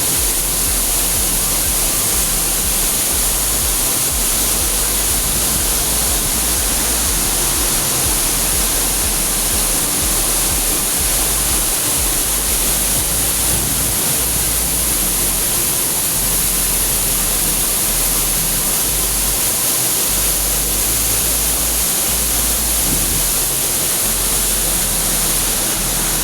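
Waterfall close by: loud, steady rush of falling water, an even hiss with a low rumble underneath and no breaks.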